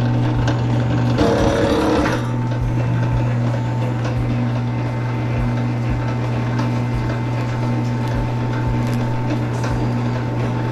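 Electric wire-stripping machine running with a steady motor hum. About a second in there is a louder, rougher stretch lasting under a second.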